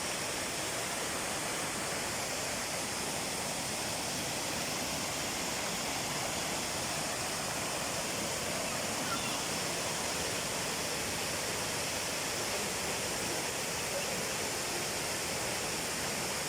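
Duwili Falls waterfall: a steady, unbroken rush of falling water.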